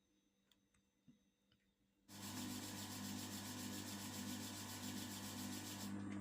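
A few faint clicks, then about two seconds in an electric sewing machine starts running with a steady motor hum and a fast mechanical whir.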